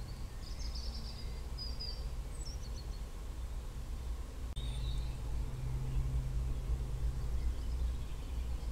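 Outdoor field ambience: a steady low rumble, with small birds chirping a few times in the first couple of seconds and again about halfway, just after a single sharp click.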